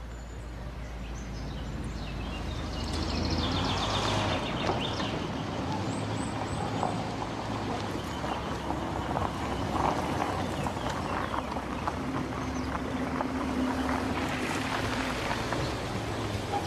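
A car driving along and pulling up, its engine running and tyres rolling, growing louder a few seconds in. Birds chirp briefly in the background.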